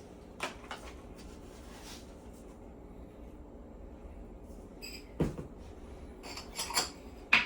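Kitchen containers and utensils being handled while seasoning is measured out. A few scattered knocks and clicks, the loudest about five seconds in and a sharp click near the end, over a low steady hum.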